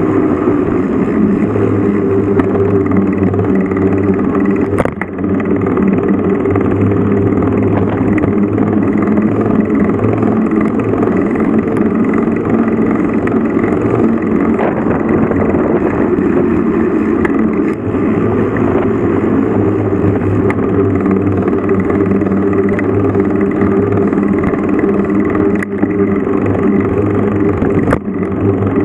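Vehicle engine running steadily under way, heard from on board, with brief dips in level about five seconds in and near the end.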